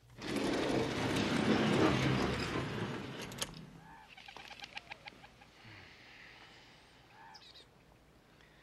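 A loud rushing noise that fades away over about three seconds, then quiet woodland ambience with birds chirping and a few light clicks.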